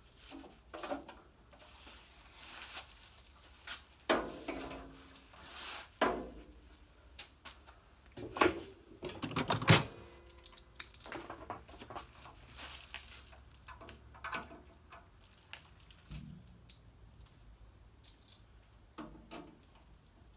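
Steel tool cart drawer and its metal drawer slides being handled: irregular metal clanks, clicks and knocks, the loudest a few knocks about halfway through.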